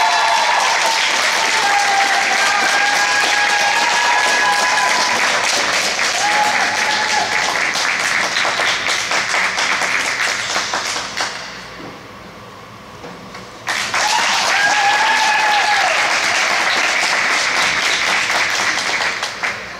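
Audience applauding at the end of a figure skating program, with a few voices cheering over the clapping. The applause drops away about twelve seconds in, comes back suddenly about two seconds later, and fades near the end.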